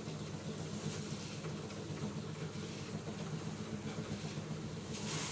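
A machine running steadily with a low, even hum. A short hissing rush comes near the end.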